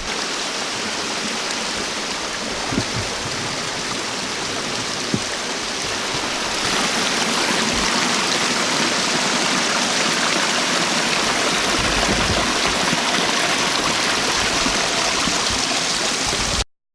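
Steady rush of flowing water. It grows louder about six seconds in and cuts off abruptly just before the end.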